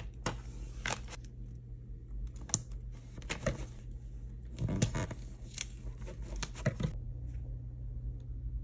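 Tape and a sheet of foil transfer film being handled: strips of tape pulled, torn and pressed down along the foil's edges, with the thin foil crinkling under the hands. A series of short rasps and crinkles that stop about seven seconds in.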